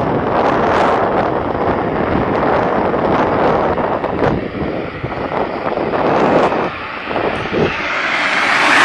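Wind buffeting the camera's microphone while riding a bicycle, a steady loud rush that dips about two-thirds of the way in and swells again near the end.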